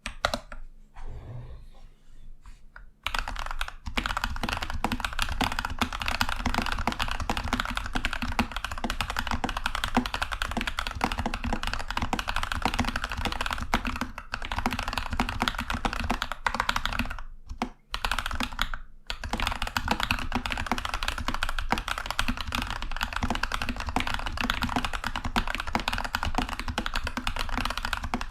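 Continuous fast typing on a Keychron V2 mechanical keyboard with lubed TTC Heroic Panda switches and Apollo clone keycaps, on a desk mat. It is quieter and sparser for about the first three seconds, then runs as a dense, steady clatter of keystrokes, with two brief pauses a little past the middle.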